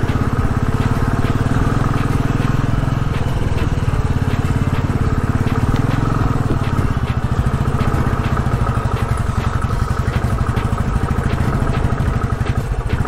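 Royal Enfield Classic's single-cylinder engine thumping along at low speed over a rough, stony track, with frequent light clicks and knocks from the bike jolting over the stones.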